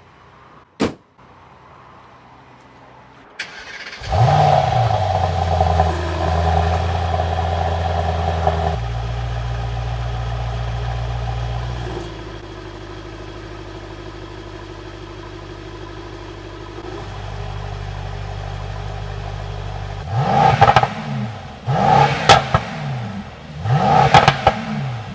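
The bonnet of a Mercedes-AMG GT 63 S 4-Door shuts with a single knock. About four seconds in, its 4.0-litre twin-turbo V8 starts with a quick rising flare and settles into a fast idle that steps down twice to a lower, steady idle. Near the end the engine is revved in short blips, about one every second and a half.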